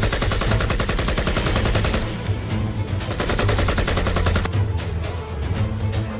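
Rapid automatic gunfire, a dense rattle of many shots a second, over background music with a steady deep bass.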